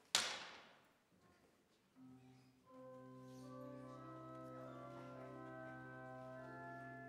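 A sharp thump right at the start, then about two seconds in a church organ begins playing sustained chords over a steady held bass note.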